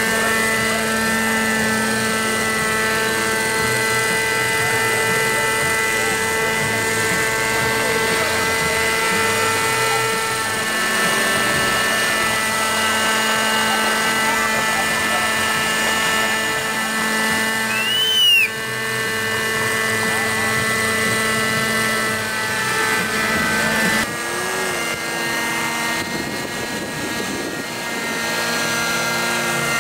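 Radio-controlled scale Bell helicopter model flying low and hovering: the steady whine of its engine and spinning rotors. A short, high, rising-and-falling chirp cuts in about halfway through.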